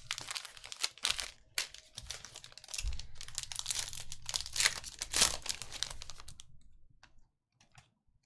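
Foil wrapper of a trading-card pack crinkling as it is torn open and peeled by hand. The dense crackling stops about six and a half seconds in, followed by a few faint clicks of cards being handled.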